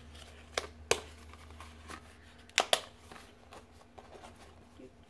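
A small cardboard carton being opened and handled by hand: a few sharp clicks and crackles of the card flaps and paper in two pairs, with lighter rustling in between.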